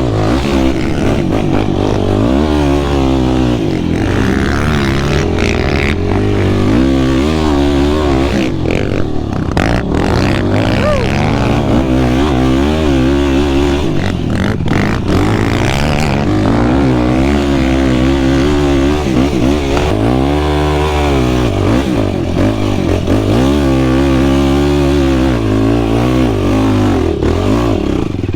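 Yamaha YFZ450R quad's single-cylinder four-stroke engine being ridden, its pitch rising and falling over and over as the throttle is opened and closed.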